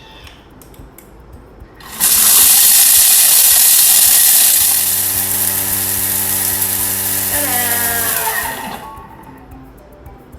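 Thermomix TM6 grinding coffee beans at high speed: a loud, steady, gritty whir that starts suddenly about two seconds in, then a falling whine as the motor slows to a stop near the end.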